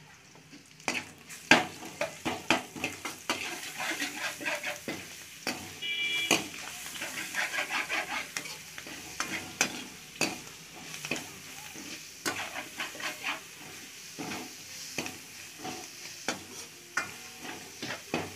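Steel ladle stirring and scraping crushed garlic, shallots, curry leaves and green chillies frying in oil in a stainless steel kadai: frequent metal clicks and scrapes against the pan over a steady sizzle. This is the tempering stage, the garlic being sautéed in the oil.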